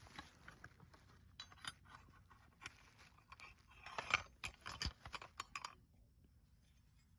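Small clicks and rattles of a car door handle and its bracket being handled and fitted inside the door, densest and loudest about four to six seconds in, then stopping.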